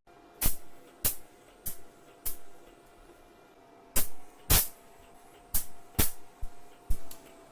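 Hammer blows on metal: about a dozen sharp strikes at irregular spacing.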